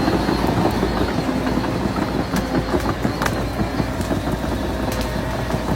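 Bulldozer running, its diesel engine a steady low drone under a continuous rattling clatter, with a few sharp clicks.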